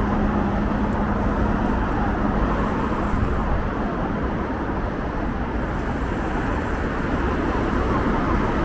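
Steady city road traffic noise: a continuous rumble and hiss of motor vehicles on the street.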